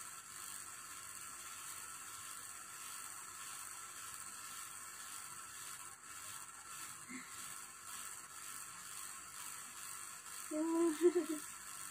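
Faint steady hiss of room tone, with a short burst of a woman's voice near the end.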